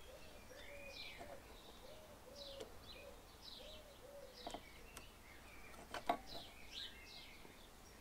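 Faint birdsong: small birds chirping, with a low call repeated about twice a second in the first half. A few sharp clicks about halfway through come from pliers squeezing a plastic scotch lock wire connector shut.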